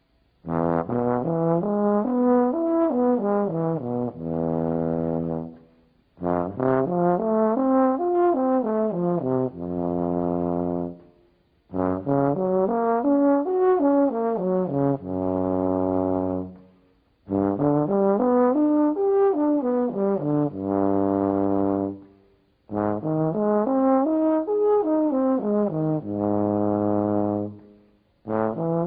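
A low brass instrument playing a tone-and-jaw-position exercise. It plays five phrases of quick notes that climb and fall back, each ending on a long held low note, with short breaths between phrases.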